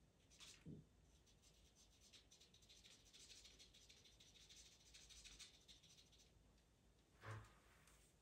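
Faint scratching of a pastel pencil making short, light strokes on Pastelmat paper, with two soft thumps, one about a second in and one near the end.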